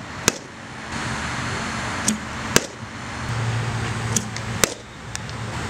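Softball bat striking pitched balls: three loud, sharp cracks about two seconds apart, each with a fainter click about half a second before it, over steady outdoor noise.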